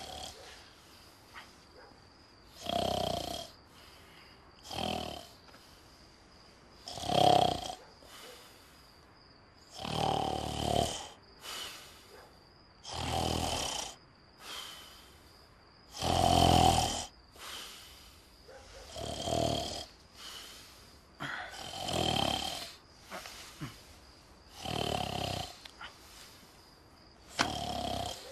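A man snoring loudly and heavily, with long, rough snores repeating every two to three seconds. Some of the snores are deep and rumbling.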